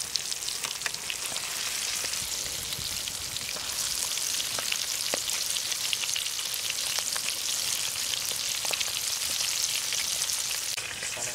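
Spice-coated chicken drumsticks deep-frying in hot oil in a metal kadai: a steady sizzle with many small crackles and a few louder pops.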